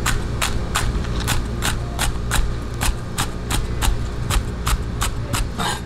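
Chinese cleaver chopping green onions on a thick wooden chopping block: steady, even strokes about three a second. A steady low hum runs underneath.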